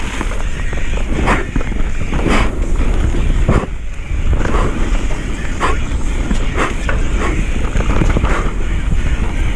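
Mountain bike descending a muddy dirt trail: a steady low rumble of tyres on the ground and wind on the microphone, with the bike rattling and knocking over bumps about once a second.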